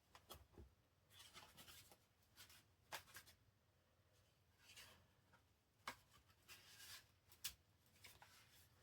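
Faint rustling and light ticks of paper and card being handled: the pages, pockets and journal cards of a handmade junk journal being turned and slid about.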